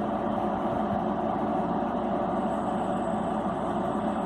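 Steady mechanical hum that stays unchanged throughout.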